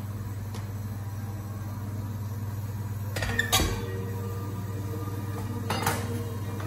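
Stainless-steel colander and bowl clinking and knocking as they are handled, the loudest clinks about three and a half seconds in and a smaller pair near six seconds, over a steady low hum.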